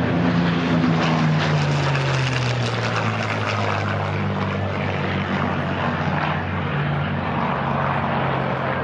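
P-51 Mustang's Packard/Rolls-Royce Merlin V-12 engine and propeller on a low flypast. The engine note drops in pitch over the first three seconds as the plane passes, then holds steady as it flies away.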